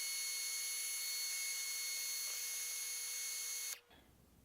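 Heat gun running to shrink heat-shrink tubing over LED leads: a steady blowing hiss with a high whine, switched off near the end.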